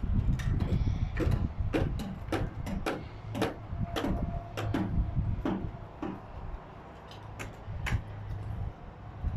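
Irregular sharp knocks, about two or three a second, typical of hammering on timber roof formwork, over a steady low rumble.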